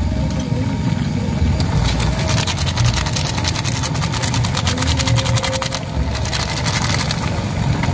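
Soup bubbling in a cast-iron wok over the heat, with a dense fast crackle from about two seconds in to about six seconds, over a steady low rumble.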